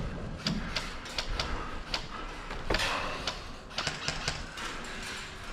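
Scattered sharp clicks and snaps of airsoft gunfire, a dozen or so at irregular intervals, over a low steady rumble.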